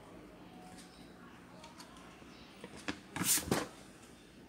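Handling noise from a graphics card being picked up and turned over on a workbench: a few light clicks, then one brief scraping rustle about three seconds in.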